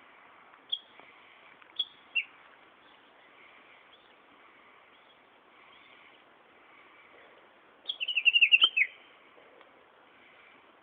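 Japanese bush warbler (uguisu) singing: a few short, separate high notes early on, then a quick run of rapid chirping notes about eight seconds in.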